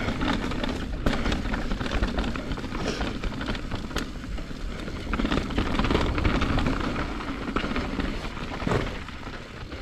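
Mountain bike moving over a rough dirt trail: a steady crunching noise from the tyres on dirt and gravel, broken by many small clicks and knocks.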